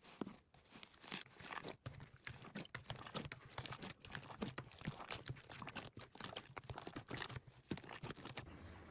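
Slime being squeezed and pressed by hand, giving a dense, irregular run of small crackling clicks and pops.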